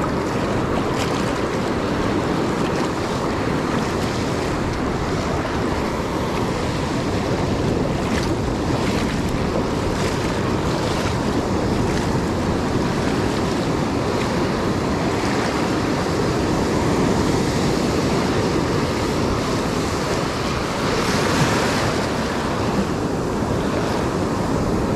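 Ocean surf washing continuously into the shallows, with wind on the microphone.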